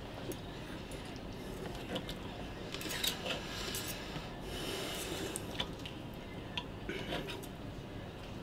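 Knife sawing through roast beef on a plate, with a fork holding it: soft rasping and scraping, broken by occasional light clicks of cutlery against the plate.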